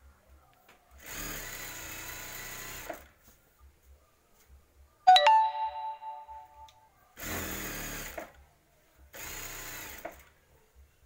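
Industrial sewing machine running in three short bursts of stitching, the first about two seconds long and the next two about a second each. About five seconds in, a loud ringing ding with a few clear tones sounds and fades over about a second and a half.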